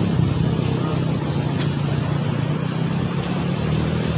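ATV (quad bike) engines running steadily, a low even engine note with no clear revving.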